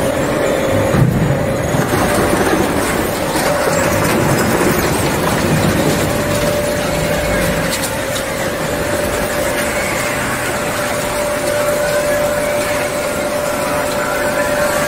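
Refrigerator recycling line machinery running: a dense, steady mechanical noise with a constant hum over it.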